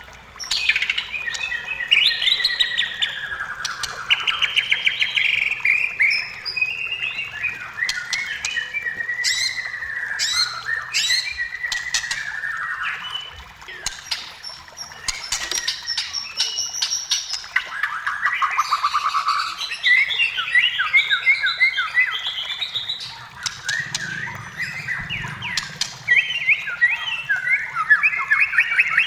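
White-rumped shama singing continuously: a varied run of whistled phrases, fast trills and sharp clicking notes with hardly a pause.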